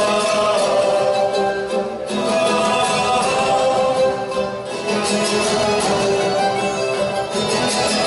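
Portuguese university tuna music: an ensemble of guitars and mandolins playing steadily together.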